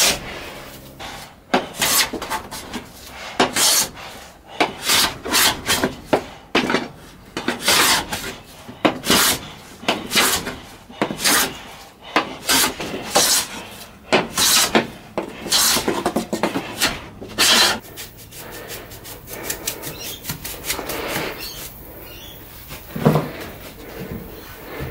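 Hand plane being pushed over a painted wooden tabletop in short, quick strokes, about one or two a second, shaving off the old paint and wood. The strokes stop about three-quarters of the way through, leaving quieter scraping and a single knock near the end.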